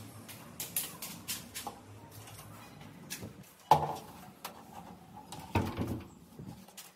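Scattered light clicks and knocks of things being handled around a home, with a sharper knock nearly four seconds in and a few more knocks about a second before the end.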